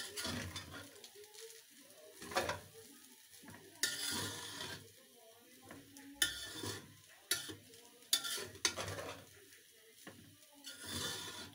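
A metal spoon stirring and scraping fried rice around a metal pan over the flame: irregular strokes with sharp knocks against the pan, and a faint sizzle of frying between them.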